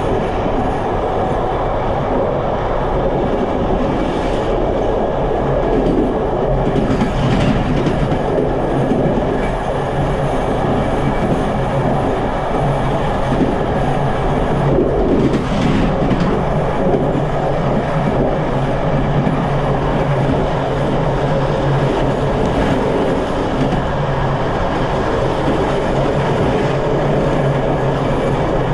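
Passenger train coaches running along the track, heard from the rear of the train: a steady rolling noise of wheels on rail with a constant low hum. It gets briefly louder and rattlier about 7 seconds in and again at about 15 seconds.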